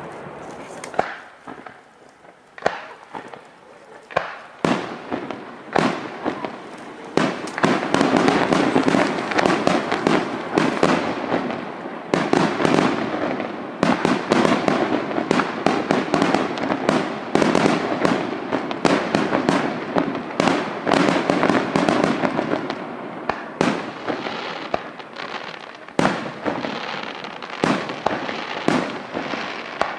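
Aerial firework shells bursting. At first there are single bangs about a second apart. From about seven seconds in comes a dense run of rapid bangs and crackling, which thins back to separate bangs near the end.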